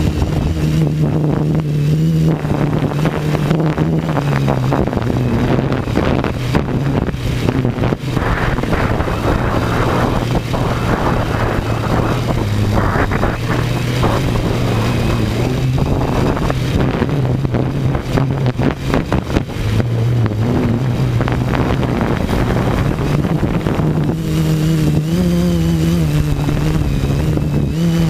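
A motor running continuously, its pitch shifting up and down, with a rougher, rushing noise in the middle stretch.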